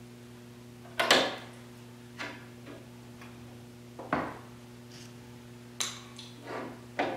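Small sheet-metal patch pieces and pliers clinking and tapping against a steel car fender as the patches are fitted to the wheel-arch opening: about half a dozen short, sharp clicks at irregular intervals, the loudest about a second in, over a steady low hum.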